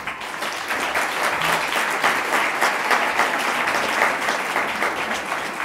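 Audience applauding: many hands clapping together, steady and fairly loud, easing off a little near the end.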